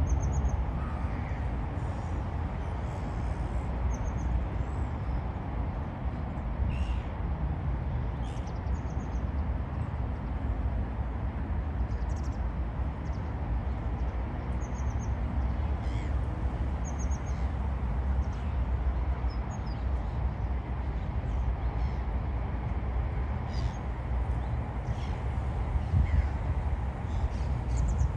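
Birds calling by a river: scattered short, high calls, some in quick runs of chirps, over a steady low rumble.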